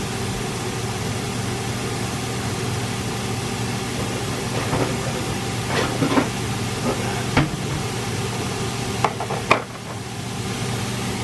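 Steady hiss and low hum of a pot heating toward the boil on an induction cooktop, with a few light knocks in the second half.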